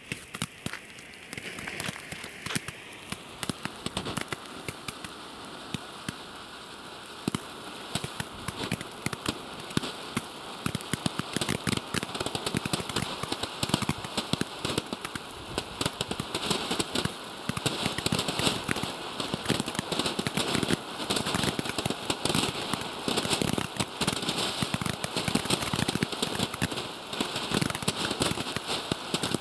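Chrysanthemum fountain firework burning: a steady hiss of sparks with many sharp crackles and pops. It grows louder, and the crackling gets denser in the second half.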